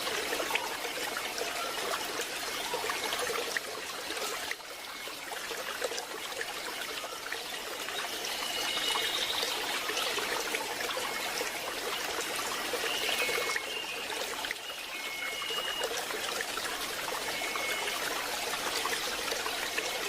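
Water of a tropical waterfall and its stream splashing and running steadily. A few short high chirps come in over it in the second half.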